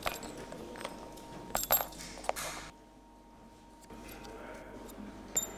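A pin punch and small metal parts clicking against a Beretta 92 pistol frame as the trigger group is worked on: a few sharp metallic clinks with a short ring, the loudest a quick pair about a second and a half in, another just after and one more near the end.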